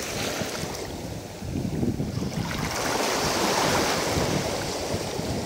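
Small waves washing and splashing, with wind buffeting the microphone. The wash swells louder for a few seconds in the middle, then eases.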